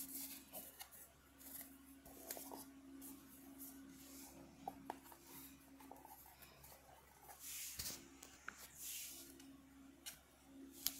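Faint handling noise from a plastic earbud charging case turned in the fingers: small clicks and scraping rubs, with a sharper click near the end.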